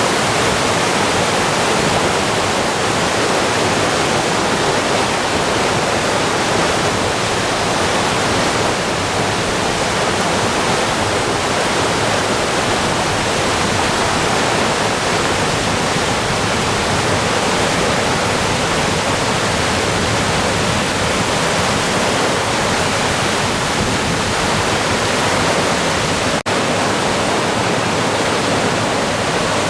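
Swollen river in flood after heavy typhoon rain, its fast current making a loud, steady roar. The sound drops out for an instant once near the end.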